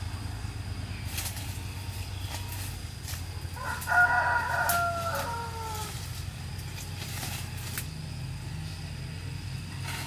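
A rooster crows once, about four seconds in: a call of about two seconds that slides down in pitch at the end. A steady low hum and a few light clicks run underneath.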